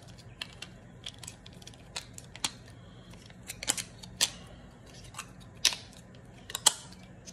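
Irregular light clicks and snaps of a plastic window-balance shoe and cover being handled and fitted over two tight metal coil springs. There are a dozen or so clicks, the sharpest in the last two seconds.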